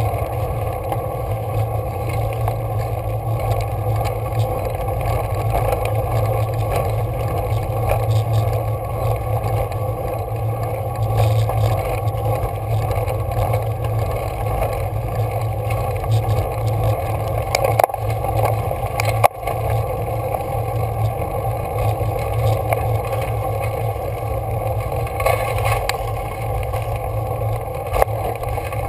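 Steady wind and road rumble on a bicycle-mounted camera while a road bike climbs a gravel and rock road, with a couple of sharp knocks about two-thirds of the way through.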